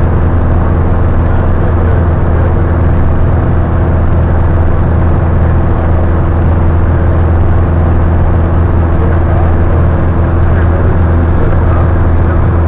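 Light aircraft's engine and propeller droning steadily, heard inside the cabin in flight: a loud, unchanging low hum.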